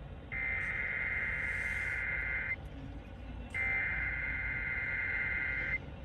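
Emergency Alert System SAME header: two bursts of rapid, high-pitched digital warbling, each about two seconds long and a second apart, encoding a Child Abduction Emergency alert, heard over radio hiss.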